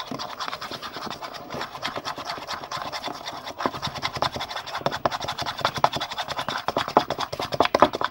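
Spoon beating glue mixture in a bowl, fast, with the spoon scraping and clicking against the bowl: a dense run of quick scratchy clicks, played sped up.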